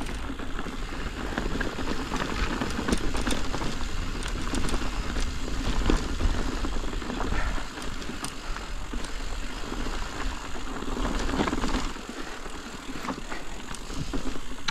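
Mountain bike (Ibis Ripmo) riding downhill on loose, rocky dirt singletrack: tyres crunching over rocks and dirt, with frequent sharp clicks and rattles from the bike. Wind rumble on the microphone underneath eases near the end.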